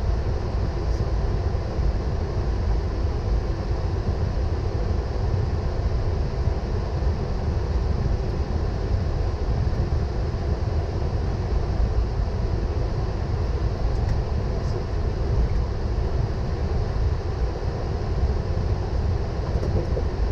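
Steady low rumble with a hiss above it inside a Boeing 777 cockpit as the airliner taxis.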